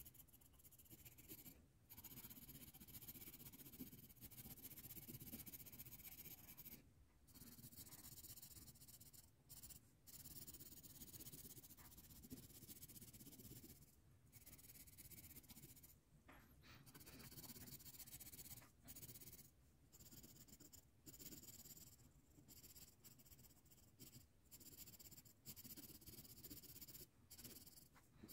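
Faint scratching of a colored pencil shading on paper in quick back-and-forth strokes, with short breaks here and there where the pencil lifts.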